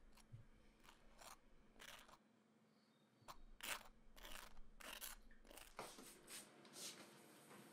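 Table knife scraping across dry toast in a series of short strokes as a spread goes on. Near the end comes a trigger spray bottle squirting cleaner onto the worktop.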